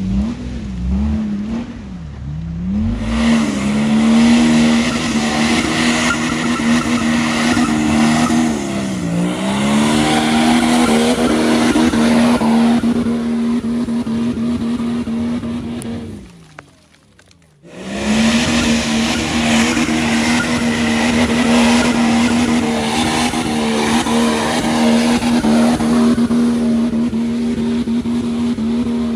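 Nissan Patrol's swapped BMW M57 twin-turbo straight-six diesel held at high, steady revs under hard load on a steep muddy climb, with the tyres spinning and throwing mud. The revs dip briefly and recover. About halfway through, the sound drops away for a second or so, then returns at the same steady pitch.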